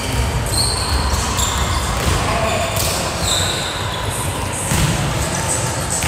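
Volleyballs being hit and bouncing on a hardwood gym floor, a few scattered thuds, with short high sneaker squeaks and players' voices in a large gym.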